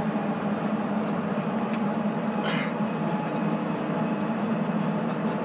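Sapporo subway Tozai Line 8000 series rubber-tyred train running at speed between stations, heard from inside the car as a steady drone of tyres and running gear. A brief hiss about two and a half seconds in.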